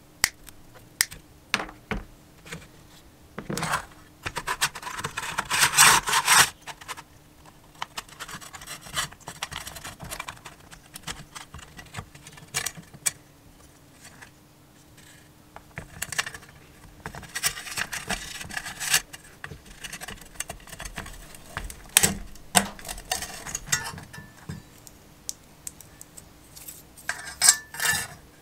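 Hand disassembly of a small-engine recoil starter: clicks and knocks of metal and plastic parts being handled, side cutters working on the starter rope, and scraping and rubbing as the plastic rope pulley is worked out of its housing. Near the end comes a quick run of light metallic ticks and rattles as the coiled steel recoil spring is exposed.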